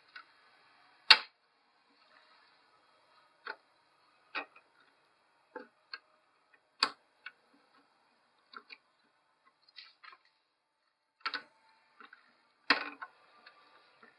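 Irregular sharp clicks and taps of a cooler backplate and its screw pins being handled and fitted against the back of a motherboard, about a dozen in all, the loudest about a second in and near the end.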